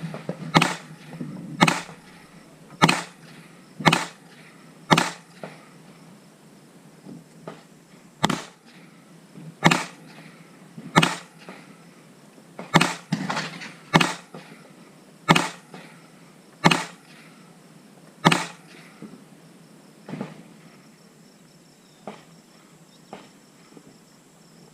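Gunshots on a shooting range: single sharp shots about every one to one and a half seconds, with a short break around six to eight seconds in. After about 19 seconds the shots are fainter and more spread out.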